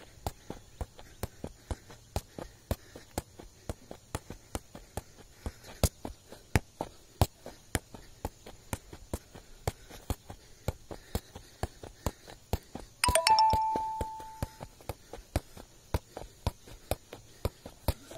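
Leather football being juggled with the feet: a steady run of short thuds, about three touches a second. About two-thirds of the way through, a loud two-note chime rings once and fades over a second or two.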